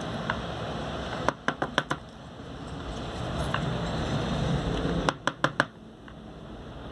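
Hands working on the plastic case of a Saregama Carvaan portable music player as it is taken apart: steady rubbing and handling, with two quick runs of about four sharp plastic clicks, one early and one about five seconds in.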